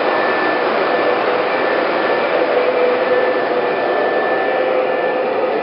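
O-gauge model freight cars rolling past on three-rail track: a steady rumble of wheels on rail, with faint steady tones over it.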